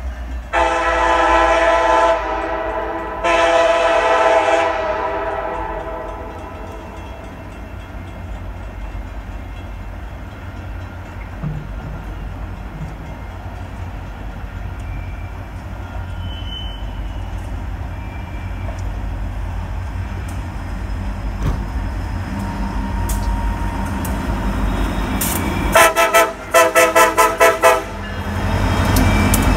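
Multi-tone air horn of an approaching ex-Conrail EMD SD60M diesel freight locomotive: two long blasts from a distance, then near the end a quick run of about six short toots. Under it the low rumble of the locomotives' diesel engines builds as the train comes close and passes.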